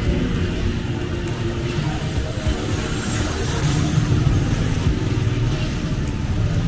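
Street traffic rumbling steadily, with a motorcycle tricycle's engine passing close by about halfway through.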